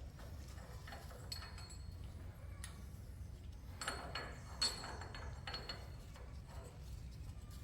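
Steel truck brake parts clinking and knocking against each other, with short ringing metallic tones, in a few clusters over a steady low hum, as the heavy hub and brake rotor are worked back onto the axle.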